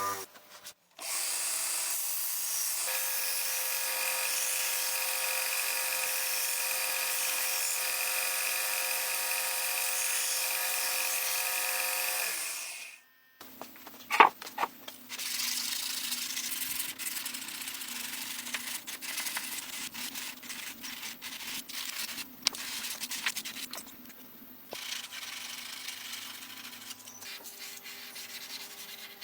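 An electric power tool running steadily for about twelve seconds, then cutting off. After a short gap and a sharp click, it gives way to uneven abrasive rubbing with scattered small clicks, typical of sanding the blade.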